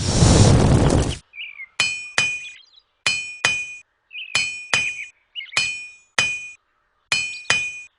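A hammer striking an anvil in ringing metallic blows, two quick strikes at a time, five pairs in about six seconds. Before them, a burst of wind-like noise cuts off about a second in.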